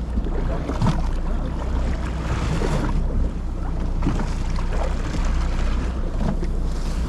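Fishing boat's engine running steadily at low revs, with wind on the microphone and the rush of sea water around the hull.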